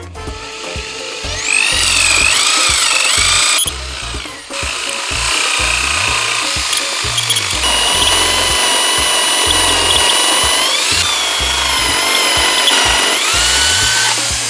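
Power drill with a spade bit boring into a wooden log round. The motor whine rises and falls with the load, drops off briefly about four seconds in, then runs steadily and speeds up near the end.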